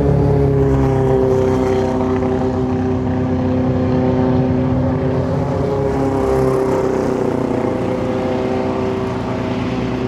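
Racing car engines at high revs, heard from a distance as a sustained drone whose pitch drifts slowly, as cars approach the corner.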